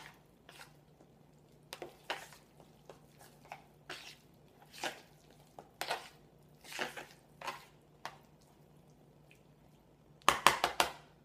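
Soft, scattered squishing and scraping of cauliflower mash being handled in a pan, then a quick run of loud metal clinks of a utensil against the pan about ten seconds in.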